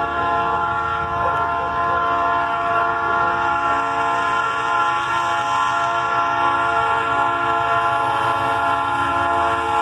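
Diesel locomotive's air horn held in one long, steady blast, a chord of several notes, over the low rumble of the approaching train.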